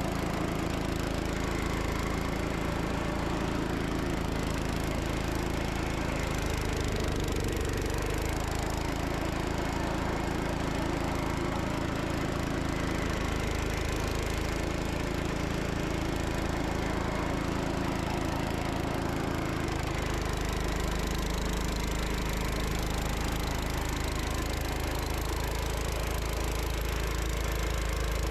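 Gravely Commercial 10 walk-behind tractor's Kohler engine running steadily, driving its snowblower attachment through deep snow; the low engine note changes about twenty seconds in.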